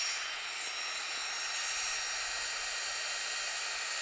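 Flextail Gear battery-powered mini air pump running steadily, blowing air into an inflatable sleeping mat through its valve: an even, airy whirring hiss with no breaks.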